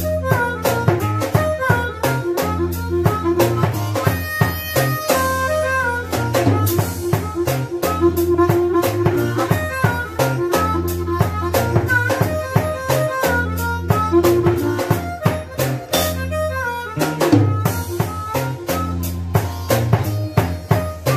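Amplified blues harmonica played cupped against a vocal microphone, wailing with bent, sliding notes over a drum kit keeping a steady beat and sustained low notes underneath.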